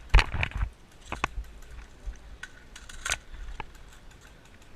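Sharp clicks and light rattles: a quick cluster in the first half-second, then single clicks scattered every half-second to a second.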